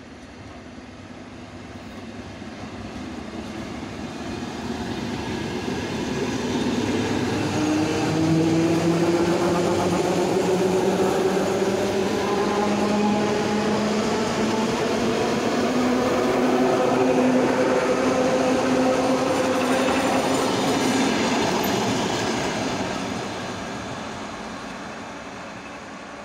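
ER9E electric multiple unit running past at speed, its wheels rumbling on the rails with a whine that slowly rises in pitch. It swells over the first several seconds, stays loud while the carriages go by, and fades near the end as the train moves away.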